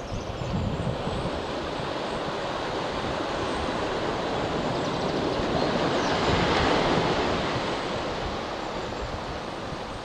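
Ocean surf washing up a sandy beach among rocks: one wave surge builds to its loudest about two-thirds of the way through, then ebbs. Wind buffets the microphone now and then, mostly near the start.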